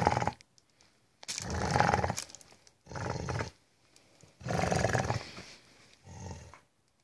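Rottweiler-Beagle mix dog growling in five rough bursts, each under a second and a half, with short pauses between. These are warning growls over a plastic bag he is guarding.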